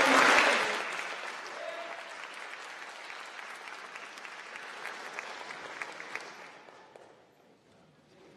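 Audience applauding. It is loudest at the start, thins to scattered claps, and fades out about seven seconds in.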